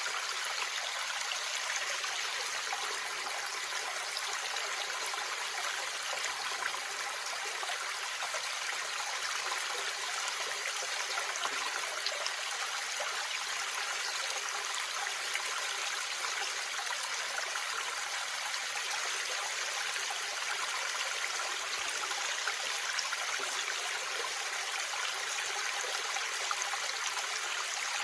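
Waterfall: a steady rush of falling water, an even hiss-like roar with no deep rumble.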